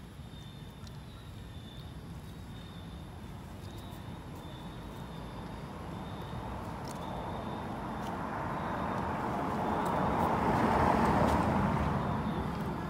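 A passing vehicle: a steady noise that grows slowly louder, peaks near the end, then fades.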